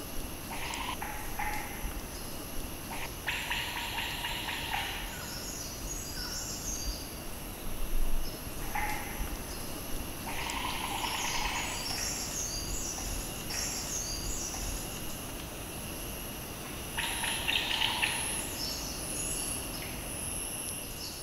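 Forest ambience: birds calling over a steady, high insect drone. A pulsing, rattling bird call comes three times, about seven seconds apart, between higher chirping notes.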